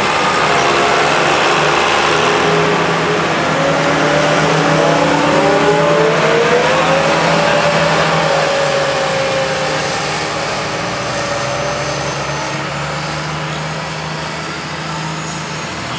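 Farm tractor's diesel engine running hard under full load, pulling a weight-transfer sled. Its pitch rises a few seconds in, and the sound grows fainter over the last several seconds as the tractor moves away.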